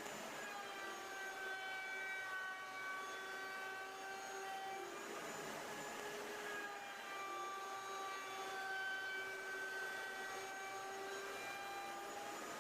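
Electric wood router running at high speed, a steady high whine whose pitch dips briefly and recovers twice, about five seconds in and near the end.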